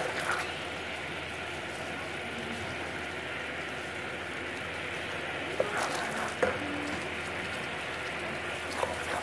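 Sugar syrup boiling in a stainless steel saucepan as it cooks down to caramel: a steady bubbling hiss. A couple of light knocks come about six seconds in.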